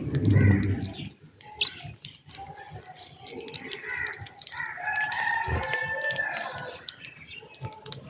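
A rooster crowing: one long, drawn-out crow from about halfway through. Short high chirps and ticks run through, and a dull low thump in the first second is the loudest sound.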